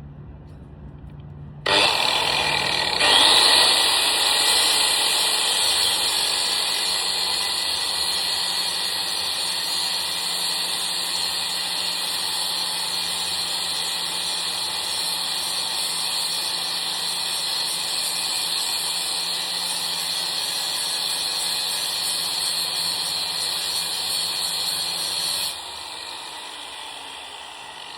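Angle grinder switched on, its whine rising as it spins up, then cutting into a thick steel rod with a steady high screech for over twenty seconds before it is switched off and winds down.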